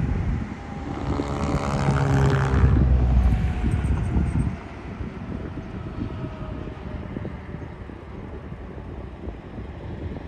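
Motor vehicle engine and road noise, running loud with its pitch climbing for a few seconds, then dropping off suddenly about four and a half seconds in to a steadier, quieter drone with some wind.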